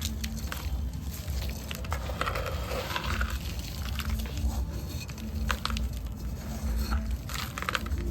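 Dry sand-cement being crumbled and crushed by hand: irregular soft crunches and small crackles, over a steady low hum.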